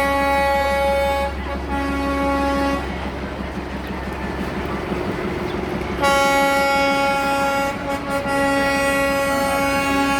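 Darjeeling Himalayan Railway toy train sounding its single-pitched toot: a short toot at the start, another brief one about two seconds in, then a long held toot from about six seconds to the end, over a steady low running hum.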